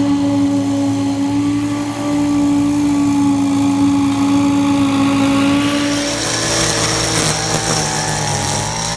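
Walk-behind lawn mower engine running steadily at full throttle while mowing. About six seconds in it gives way to a gas string trimmer, a brighter, hissier sound with a high whine.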